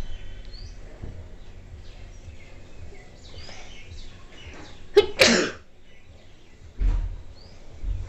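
A woman sneezing once, sharply, about five seconds in: a sneeze set off on purpose by tickling her nostril with a twisted bit of paper. A dull thump follows a couple of seconds later, and faint bird chirps sound in the background.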